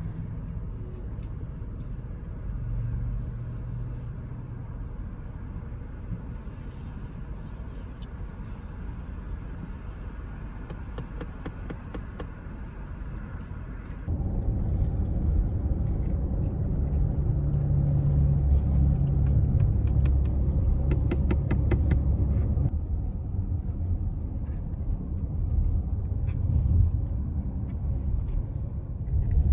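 A car driving on the road, with a steady low rumble of road and engine noise. It gets abruptly louder about halfway through.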